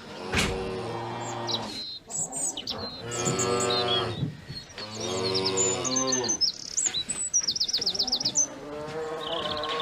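Cattle mooing: three long, drawn-out moos one after another, then a fainter one near the end. Small birds chirp high above them, with a quick run of chirps about eight seconds in.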